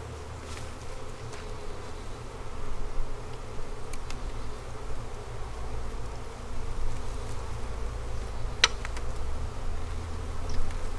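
Honeybees buzzing steadily around an open hive. A single sharp click comes about three-quarters of the way through.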